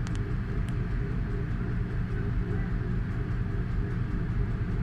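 Diesel locomotive engine running steadily with a low, even rumble and hum while it pushes a rake of empty coaches.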